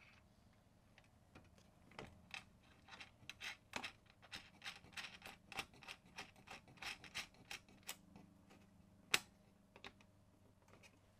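Ratchet wrench clicking faintly in quick, irregular runs as the fog lamp's mounting nut is tightened, with one sharper click about nine seconds in.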